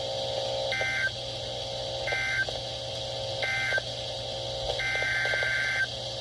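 NOAA Weather Radio SAME data bursts: three short screeching bursts, the end-of-message code closing one warning, then a longer burst about five seconds in, the header of the next warning. A steady lower electronic tone sounds between the bursts.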